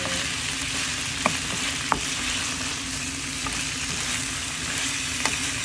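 Stir-fry of chicken, potatoes and napa cabbage sizzling steadily in a nonstick frying pan as a wooden spatula turns it, with a few sharp knocks of the spatula against the pan.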